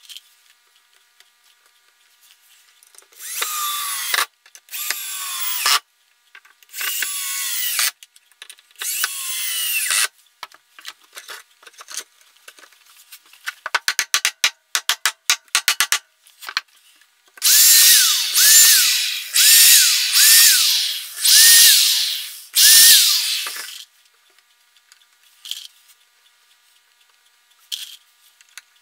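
Power drill driving screws into wooden floorboards in short runs. There are four runs, each with a pitch that drops as the screw bites, then a quick string of clicks, then six louder runs close together.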